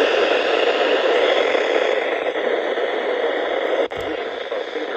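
Loud, steady static hiss from a weather-radio receiver as the NOAA Weather Radio broadcast signal fades and the warning's voice is drowned out. There is a brief dropout about four seconds in.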